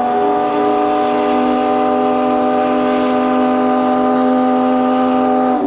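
Factory steam whistle blowing one long, steady blast that cuts off suddenly near the end.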